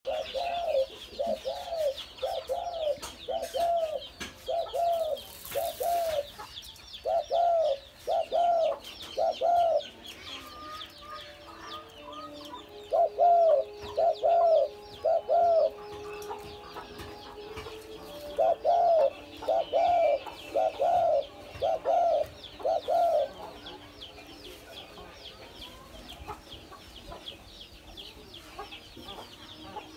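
Spotted dove calling in repeated runs of short cooing notes, about two a second, in several bursts with pauses between them. Small birds chirp faintly and high-pitched throughout.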